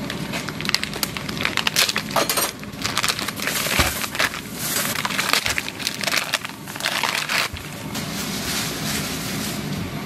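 Plastic and paper food packaging crinkling and tearing as gloved hands unwrap packs of Korean blood sausage (sundae). The crackling is dense and irregular, easing after about eight seconds into a steadier hiss.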